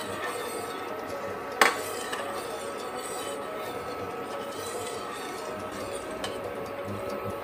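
A metal ladle stirring agar powder and coconut water in a stainless steel pot as it heats, with one sharp clink of the ladle against the pot about one and a half seconds in.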